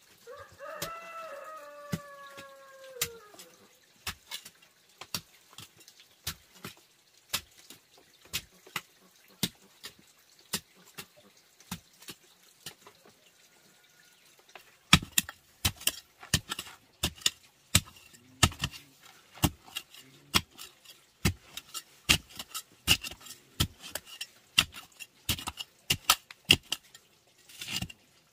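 A rooster crows once over the first three seconds, the call falling in pitch at the end. Throughout, a short-handled hoe chops and scrapes into packed clay soil in short sharp strikes, sparse and faint at first, then louder and quicker from about halfway, roughly two a second.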